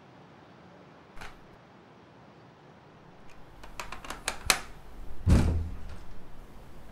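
Plastic intercom handset hung back on its wall-mounted base: a run of sharp clicks near the middle, then a heavier thump, the loudest sound, a little later.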